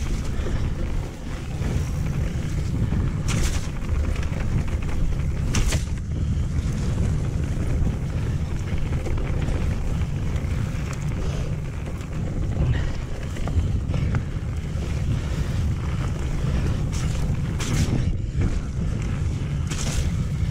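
Steady wind rumble on the microphone and tyre noise from a mountain bike riding a wet forest trail, with a few sharp knocks and rattles as the bike goes over bumps.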